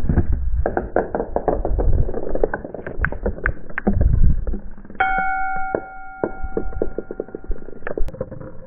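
Marbles rolling and clattering along wooden tracks, a rapid run of clicks and knocks over a low rumble. About five seconds in, a marble strikes a xylophone bar, which rings out clearly for about three seconds while the rolling clicks go on.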